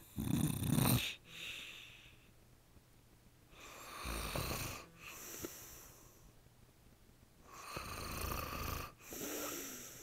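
A man snoring in his sleep with his mouth open: three loud snores about four seconds apart, each followed by a quieter breath.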